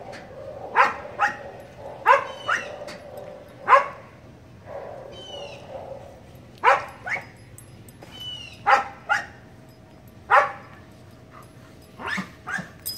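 A dog barking: about a dozen short, sharp barks at irregular intervals, often in quick pairs, a second or two apart.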